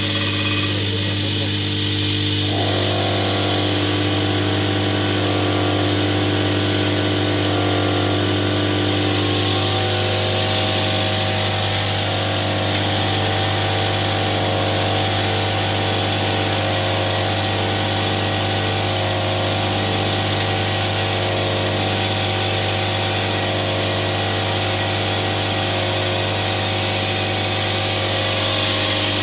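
Vertical automatic bag-packaging machine (ACCORD B series) running: a steady electric hum with several constant tones. A regular repeating machine cycle sounds over it, and the tone shifts about two seconds in.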